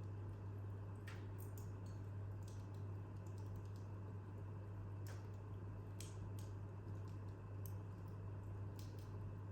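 Wood fire in a corner fireplace crackling, with scattered sharp pops and snaps every second or so over a steady low hum.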